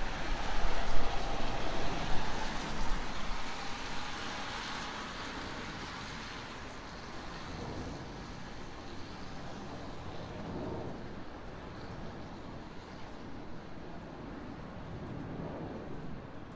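Airplane passing overhead, its engine noise fading away over the first six seconds or so and leaving a steady low city hum.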